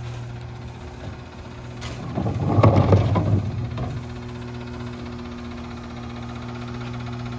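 Rear-loader garbage truck's diesel engine idling steadily, with a loud rattling crash of trash tumbling into the hopper about two seconds in. After the crash a steadier, slightly higher hum joins the idle.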